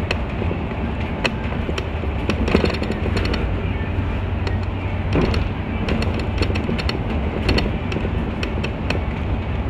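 Inside a moving city bus: a steady engine rumble and road noise, with frequent short clicks and rattles.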